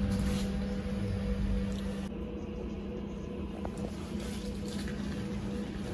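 Sinara-6254 trolleybus heard on board as it winds down: a steady low electric hum from the drive fades and cuts out about two seconds in, leaving a fainter steady hum and low rumble.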